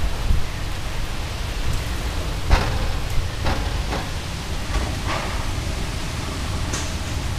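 Steady heavy rain in a thunderstorm, an even hiss, with a handful of short sharp taps in the middle and later part.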